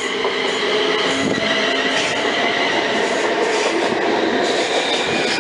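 Passenger train moving through the station close by: a steady running noise with several held high tones over it, slowly getting louder.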